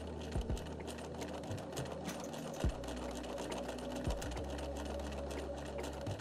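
Bernina 335 sewing machine running steadily for free machine embroidery, its needle and hopping foot making rapid even ticks over the motor hum. A few short low thumps come in the middle.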